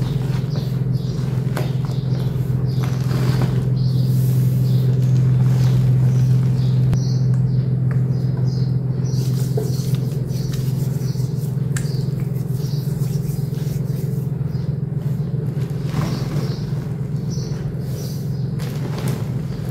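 Hands pressing and squeezing a heap of loose gym chalk powder, giving soft, irregular crunches and squeaks over a steady low rumble.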